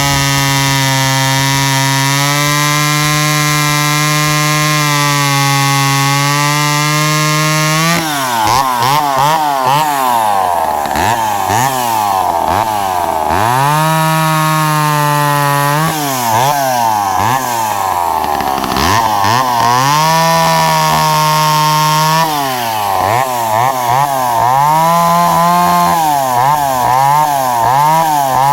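McCulloch Pro Mac 10-10S two-stroke chainsaw running hard at a steady high pitch, then, from about eight seconds in, its pitch repeatedly sagging and climbing back again as it is worked through a log round.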